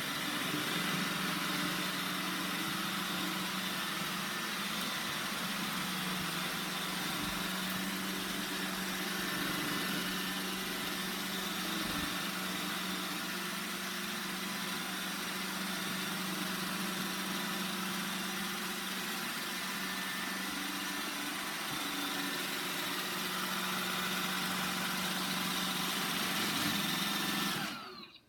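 Roomba 960 robot vacuum running: a steady motor hum with the whir of its brushes and suction, cutting off shortly before the end.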